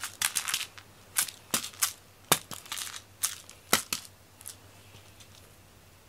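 A toy mouse on a cat-wand string being flicked and landing on foam floor mats: a run of short, crinkly rustles and sharp taps, the sharpest a little past two seconds in, which stop about four and a half seconds in.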